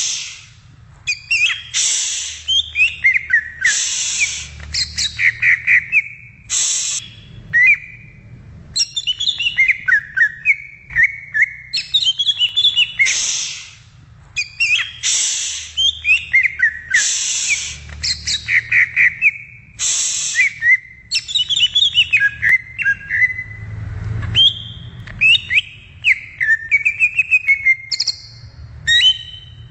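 Cucak ijo (green leafbird) singing: a continuous run of quick, varied whistled notes and slurs, broken every couple of seconds by loud harsh rasping notes.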